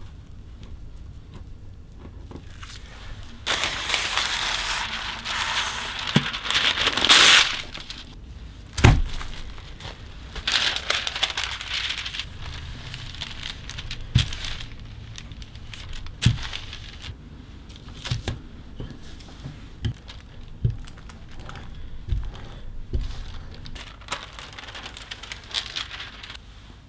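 Plastic wrap and baking paper crinkling as cookie dough is unwrapped and rolled out between paper sheets with a wooden rolling pin, loudest for a few seconds early on. Scattered dull knocks of the pin and hands on the wooden table follow, with more paper rustling near the end as the top sheet is peeled off.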